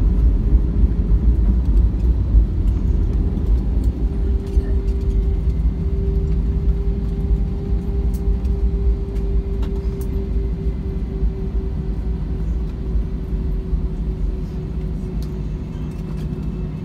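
Inside the cabin of a jet airliner rolling out on the runway after landing: a heavy, steady rumble from the engines and the rolling aircraft, with a steady hum. It slowly eases as the aircraft slows.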